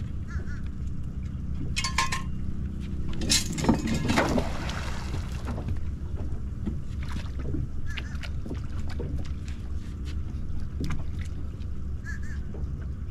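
A folding grapnel anchor is thrown off a boat's bow and splashes into the water about three and a half seconds in. Scattered light knocks follow as the anchor line is handled, over a steady low rumble.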